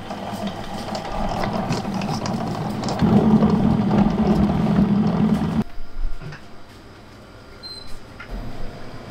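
Belt-driven electric stand mixer running steadily, its beater whipping a butter mixture in a steel bowl, the hum growing louder about three seconds in. The sound cuts off suddenly about two-thirds of the way through, leaving quiet room sound with a few faint ticks.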